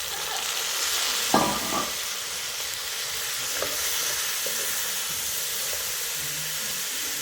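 Food sizzling as it fries in a pan, stirred now and then, with a steady hiss. A brief, louder sound stands out about a second and a half in.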